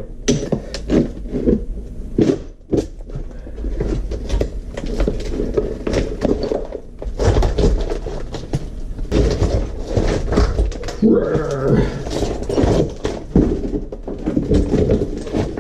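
Repeated hammer blows breaking up an old shower floor, with chunks of material cracking and clattering at irregular intervals.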